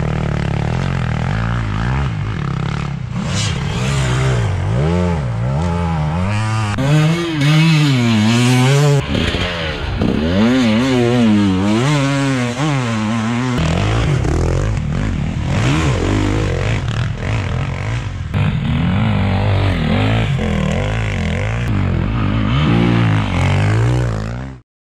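Enduro dirt bike engine revving up and down while riding off-road, its pitch rising and falling every second or so. The sound cuts off suddenly near the end.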